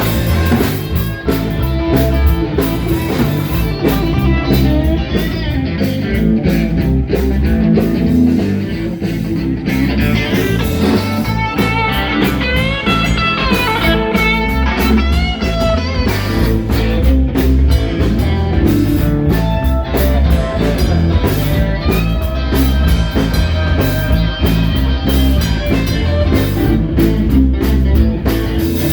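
Live blues band playing an instrumental passage: guitar leading with bent notes over bass and drums.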